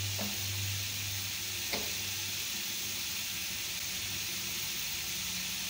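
Potato finger chips deep-frying in hot oil, a steady sizzle, at the end of their frying. Two light taps sound about a second and a half apart.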